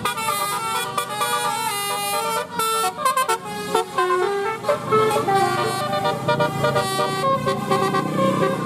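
Kids Panda bus's telolet horn, a set of electric air horns, playing a melody: quick changing notes for the first few seconds, then longer held notes.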